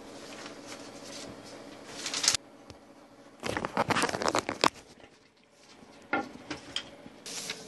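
Paper rustling and crinkling as it is handled, in several short bursts.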